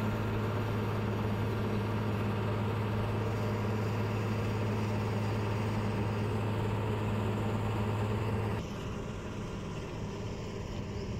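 Steady low hum of a river launch's engine, heard from aboard the moving boat. About eight and a half seconds in it cuts off suddenly, leaving a quieter rushing noise.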